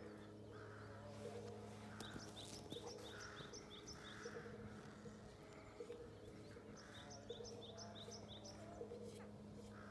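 Faint songbird singing: two runs of quick, evenly repeated short high chirps, over a steady low hum.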